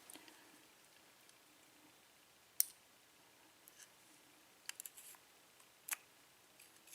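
A few sharp light clicks, scattered and irregular, from small metal lock pins and parts being handled and set down on the work surface.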